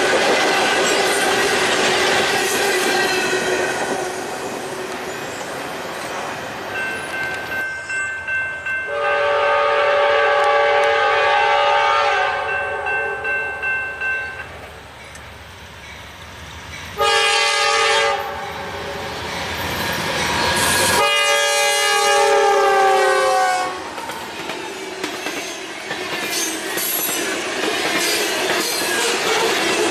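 Coal train rolling past with its wheels clattering. Then the chord air horn of a Norfolk Southern GE AC44C6M locomotive sounds a long blast, a short one and another long one; the last falls slightly in pitch as it goes by. The train's wheels then clatter again.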